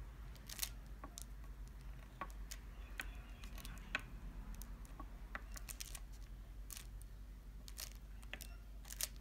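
Faint, scattered small clicks and light crackles as fingers press and roll a honeycomb beeswax sheet around a candle wick on a tabletop.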